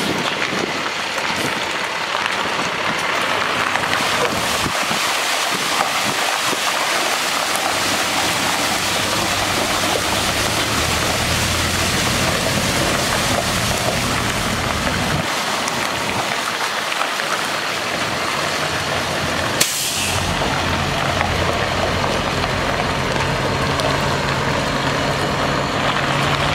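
Water spraying from a water truck's rear spray bar onto gravel, a steady hiss, over the International MaxxForce DT diesel engine running to drive the PTO water pump. A brief sharp hiss comes about twenty seconds in.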